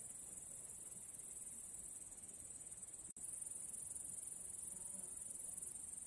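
A steady, high-pitched chorus of grasshoppers chirring, with a momentary dropout about three seconds in.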